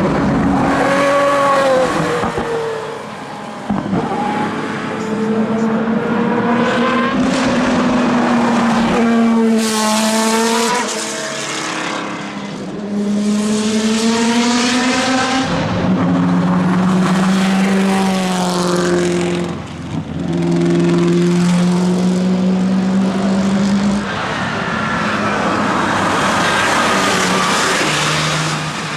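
Endurance racing cars, historic LMP prototypes and GT cars, running hard past the trackside one after another. Each engine note climbs in pitch and drops back, several times over.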